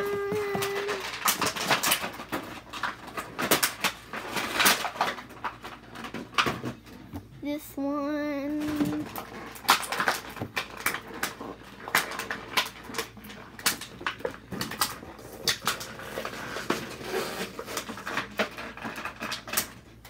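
Rapid clicks, taps and crinkles of hard plastic toy packaging being handled and pried at, irregular throughout. A short steady hummed tone sounds at the start, and a wavering one about eight seconds in.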